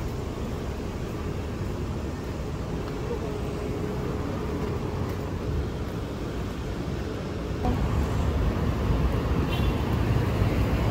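Steady low rumble of road traffic or a moving vehicle, with a faint steady hum that stops about seven and a half seconds in, where the rumble grows louder.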